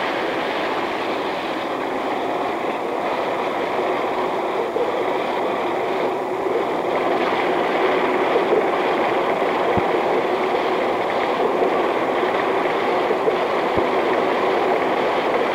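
Automatic bank check-sorting machine running, a steady mechanical clatter and rush as checks feed through and drop into its pockets, with a couple of faint clicks in the second half.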